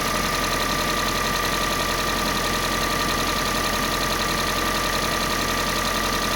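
Kia Sportage 3's G4NA four-cylinder petrol engine idling steadily with a fast, even knock running through it: the engine knock that the owner is recording.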